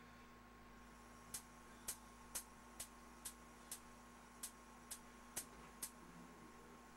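Gas stove's spark igniter clicking as a burner is lit: about ten sharp clicks, roughly two a second, then it stops. A faint steady hum lies underneath.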